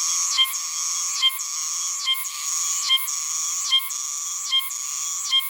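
Oshima cicada (Meimuna oshimensis) singing: a loud, high-pitched continuous buzz broken by a sharp accented note about every 0.8 seconds, seven times in a steady rhythm.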